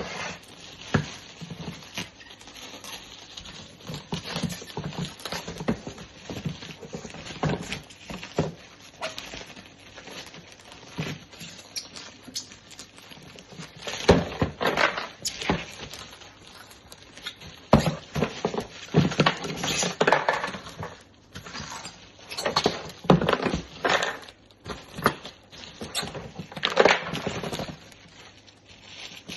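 Packaging and a cordless drill kit being handled by hand: irregular rustling with frequent knocks and clicks, busiest in several clusters through the middle and near the end.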